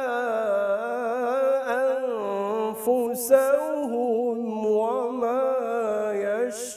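A solo male voice reciting the Quran in melodic tajweed style (tilawat), drawing out long ornamented notes, with hissing consonants about three seconds in and near the end.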